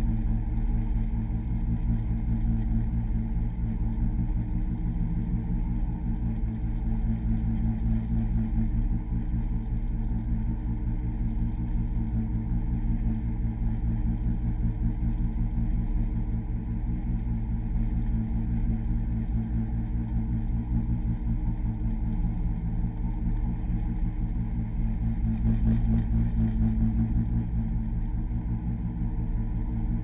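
Rigid inflatable boat's engine running steadily under way: a constant low drone, with water rushing along the hull.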